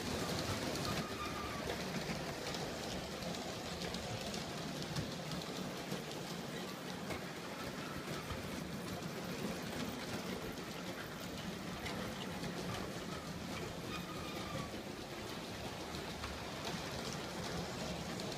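G scale model train running on its track: a steady whir and rattle from the motor and wheels rolling over the rails, with scattered faint clicks.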